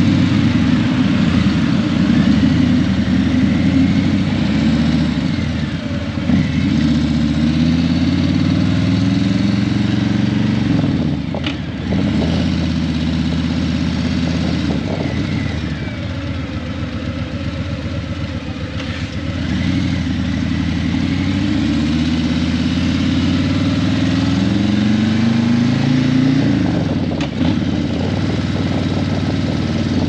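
Harley-Davidson Breakout 117's Milwaukee-Eight 117 V-twin running through Vance & Hines Eliminator 300 slip-on mufflers under way. Its note climbs in pitch as it pulls through the gears, with several short dips where the rider shifts or rolls off the throttle.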